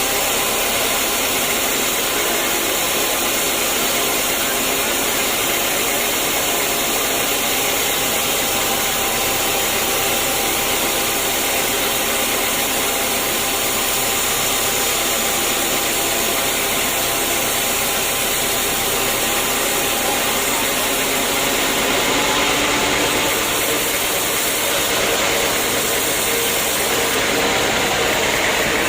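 Sawmill machinery running steadily: a continuous mechanical whir and hiss with steady tones, unchanging in level.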